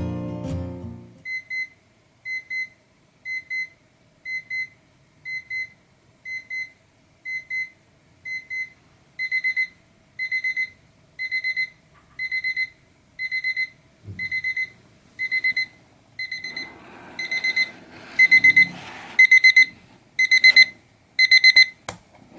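Seiko QHE209 alarm clock's electronic beep alarm going off: high beeps in short bursts about once a second. The bursts grow longer and louder as it goes.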